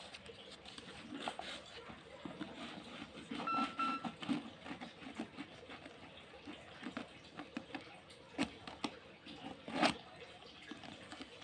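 Utility knife blade scraping and slicing along the packing tape of a cardboard shipping box, with faint scattered scrapes and rustles of the cardboard and a sharper click near the end. A brief electronic beep sounds about three and a half seconds in.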